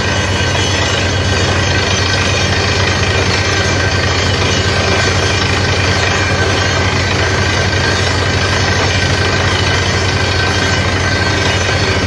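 Water-well drilling rig air-drilling a borehole: its engine and compressor run steadily under load as a heavy, fast-pulsing rumble with a steady high whine above it.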